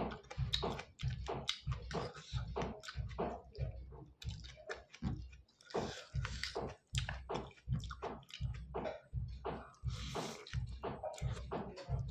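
Close-up wet chewing and slurping of spicy Maggi instant noodles, a quick run of smacking mouth sounds about four a second, with light clicks of a fork and spoon against a steel plate.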